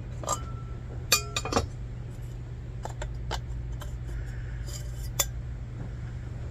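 Metal and glass parts of an old Sears lantern clinking and knocking as it is taken apart. The loudest is a ringing clink about a second in, followed by scattered lighter clicks, over a steady low hum.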